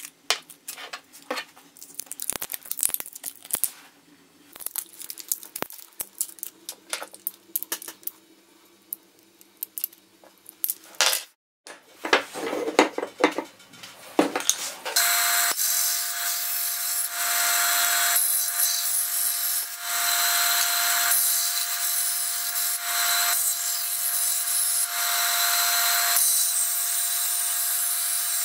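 A bench band saw runs steadily from about halfway through, cutting a thin wooden strip, with a constant whine over a hiss. Before that there are scattered light clicks and taps as plastic cups and wooden sticks are handled.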